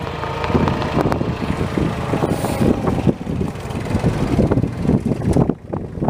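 Farm tractor engine running steadily.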